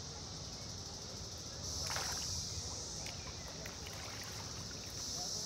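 Summer insect chorus: a steady high-pitched buzzing that swells louder about two seconds in and again near the end. A short burst of noise comes about two seconds in.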